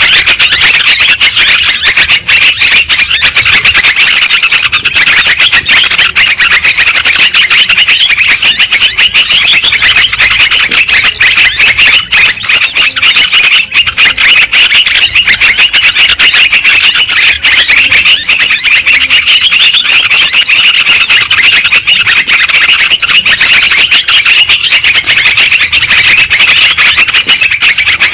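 Bird-lure recording of yellow-vented bulbuls (trucukan) calling: a dense, unbroken chorus of many overlapping high chattering calls, loud throughout.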